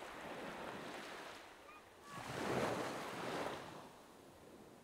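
Small waves washing onto a sandy shore: one surge swells about two seconds in and draws back, then the surf fades to a low hiss near the end.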